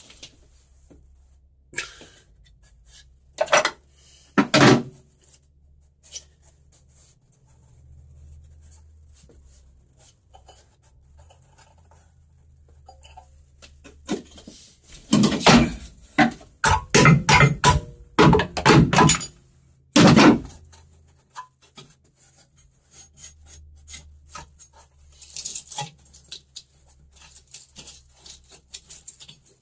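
Hard objects clanking and knocking, as when metal tools or parts are handled. A few separate knocks come near the start, then a dense run of clattering knocks around the middle, over a low steady hum.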